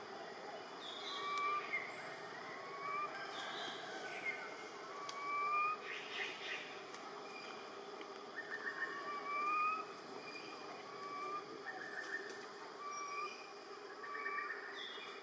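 Forest ambience: short rising whistled calls repeat about once a second, with scattered higher chirps, a few brief buzzy trills and a steady hum underneath.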